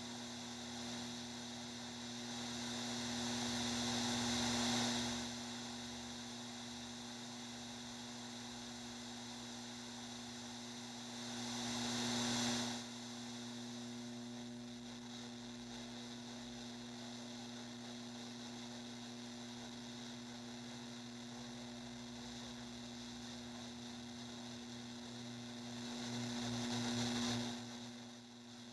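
Steady electrical hum with a constant hiss, like a television tuned to static. Three times a wash of static noise swells up over a couple of seconds and then cuts off abruptly.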